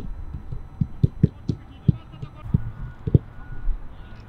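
Footballs being kicked on a grass pitch during a passing drill: a string of dull thuds at irregular intervals, a few each second.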